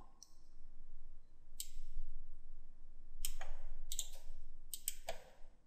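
Computer mouse clicking: about half a dozen short, sharp clicks at irregular intervals while text is selected and copied.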